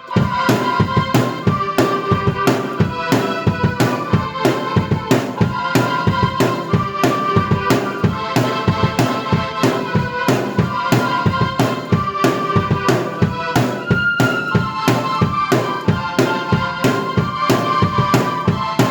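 Drum kit and keyboard played together: a steady drum beat under a held, sustained keyboard melody.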